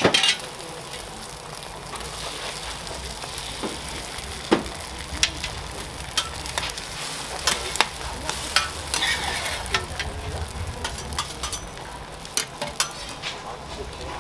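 Food sizzling as it fries on a hot griddle, with frequent sharp clicks and knocks of cooking utensils and a louder hit right at the start.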